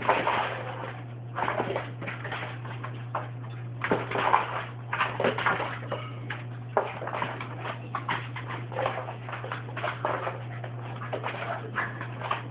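A dog chasing a laser dot on a hard floor, making irregular short bursts of scrabbling and dog noises, over a steady low hum.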